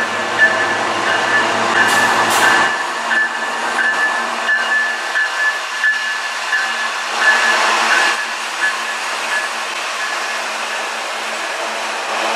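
A CN freight train passing close at speed: its diesel locomotives rumble by, giving way to the steady rolling noise of steel wheels on rail, with a thin high tone that comes and goes and a couple of brief clanks about two seconds in.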